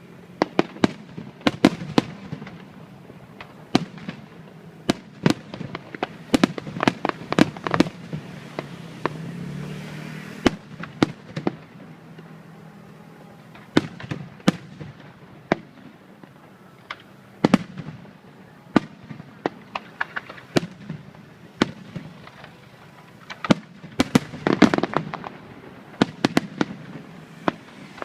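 Aerial fireworks shells bursting overhead: a long run of sharp bangs and crackles, irregular and bunched into dense volleys, over a constant rumble.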